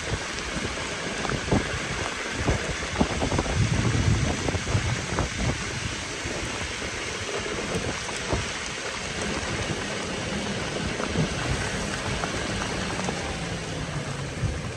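Heavy rain pouring down steadily, with many drops striking close by as sharp ticks.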